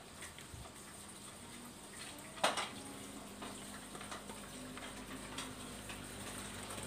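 Dog eating rice with soup from a stainless steel bowl: faint wet crackling and small clicks of muzzle and tongue against the bowl, with one sharper clink about two and a half seconds in.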